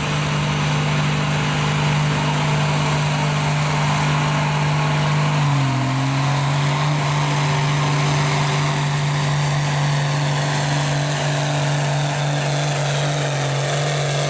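John Deere pulling tractor's diesel engine running hard at full throttle, dragging a weight-transfer sled. About five seconds in the engine note drops a step and holds lower, the engine pulling down as the sled's load builds.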